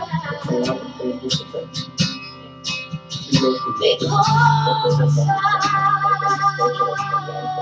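Instrumental passage of a worship song: strummed and plucked acoustic guitar, with held notes coming in about four seconds in.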